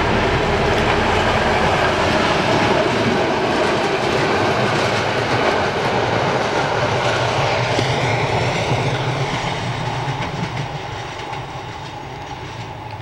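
Czech class 740 'Kocour' diesel-electric locomotive hauling two passenger coaches past at close range: a steady diesel engine drone with the wheels clacking over the rail joints, fading as the train draws away over the last few seconds.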